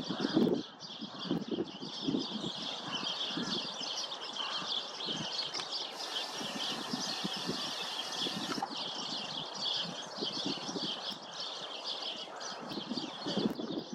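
A flock of house sparrows chirping, many overlapping chirps in a dense, continuous chatter.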